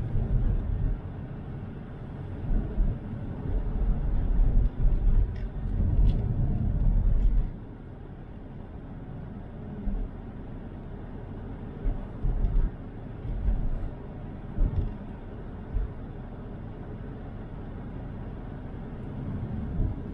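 Car road noise heard from inside the cabin while driving on snowy roads: a low rumble of tyres and engine, heavy and uneven for the first seven seconds or so, then quieter and steadier with a few short thumps.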